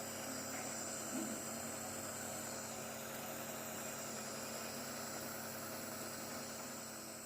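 Nebulizer compressor running with a steady electric hum and hiss.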